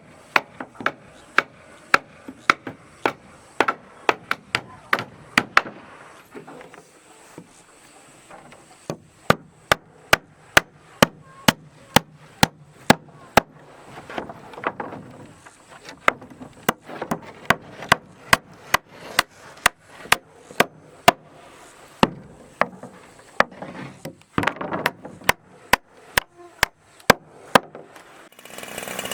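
Repeated sharp blows of a tool striking wood, about two a second, with a short lull a quarter of the way in.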